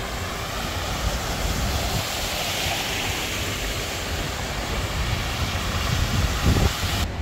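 Cars driving through deep floodwater on a street, their tyres throwing up spray in a steady rushing hiss over a low rumble of traffic. The hiss swells as an SUV passes close, about two to three seconds in.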